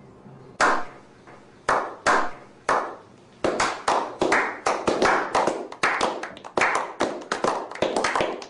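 Slow clap: a few single hand claps spaced about a second apart, each echoing briefly, then from about three and a half seconds in more people join and the clapping grows faster and denser into applause.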